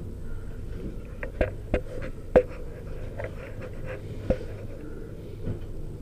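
Several separate sharp clicks and knocks, the loudest about two and a half seconds in, over a steady low background rumble.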